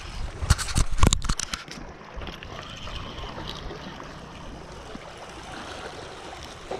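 A quick run of sharp clicks and knocks from handling the fishing rod and tackle close to the microphone, about half a second to a second and a half in, followed by a steady wash of water lapping on shoreline rocks, with wind.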